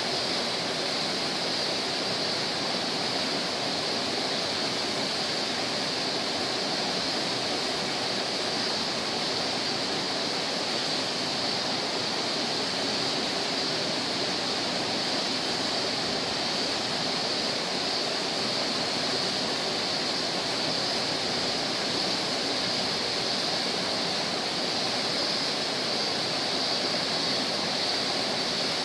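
Nunobiki Falls, a 30 m waterfall, pouring steadily: an even, unbroken rush of falling water.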